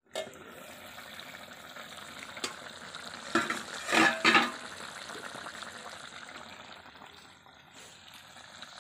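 Jackfruit curry simmering and sizzling in an iron kadai, a steady bubbling hiss that grows louder for about a second near the middle.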